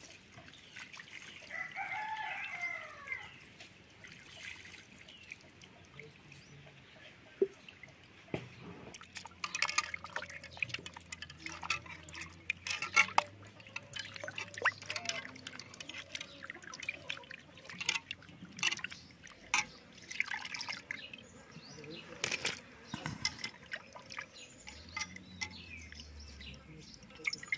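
Cut pieces of magur (walking catfish) being washed by hand in water in a metal bowl: splashing and dripping with many short sharp clicks as the pieces are handled. A rooster crows once about two seconds in.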